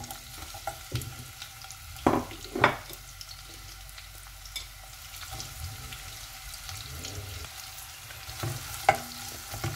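Sliced onion sizzling steadily in hot oil in a pot, with a few short knocks about two seconds in and again near the end.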